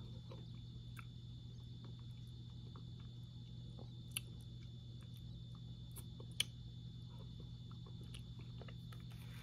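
Faint chewing and a plastic spoon scraping and clicking in a cup of chili, with two sharper clicks about four and six seconds in, over a steady low hum.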